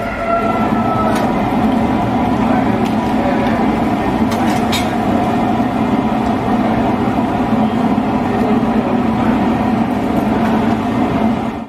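Crab masala gravy boiling hard in a steel pan over a high gas burner flame. A loud, steady rushing bubble with a few small pops and clicks.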